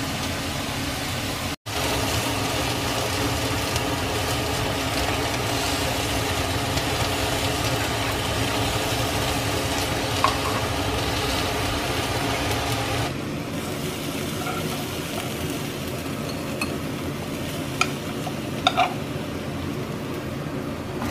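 Egg mixture for an omelette sizzling in a frying pan as it is stirred, with a few light clicks of a utensil against the pan.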